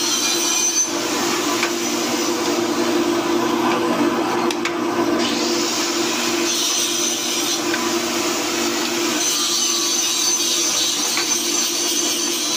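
Pillar drill press running steadily, its bit cutting holes in metal workpieces with a continuous scraping grind over the motor's hum.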